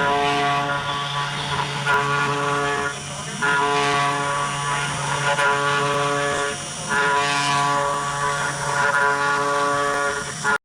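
CNC 3018 Pro router carving wood, its spindle motor running with a steady whine of several tones. The sound drops briefly about three times.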